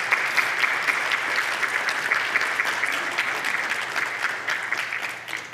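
Congregation applauding, many hands clapping together, dying away near the end.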